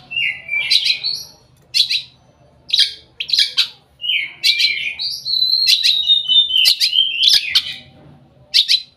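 Long-tailed shrike singing its full repertoire of mimicked phrases: short bursts of rapid, high chattering and whistled notes with brief pauses, and a longer run of drawn-out whistles in the middle.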